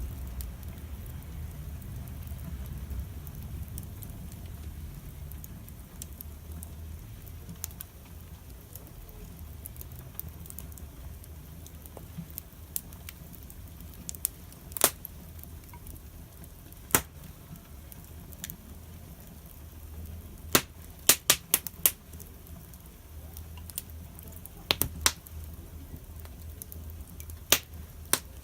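Campfire crackling: burning wood gives off sharp, irregular pops, several in quick succession a little past the middle, over a steady low rumble.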